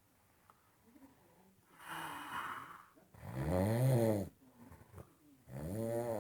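A sleeping person snoring loudly: a breathy hiss, then a long pitched snore that rises and falls, with a second snore starting near the end.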